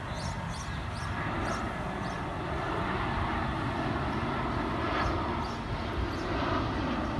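Jet airliner passing low overhead, its engines a broad rushing noise that grows slowly louder.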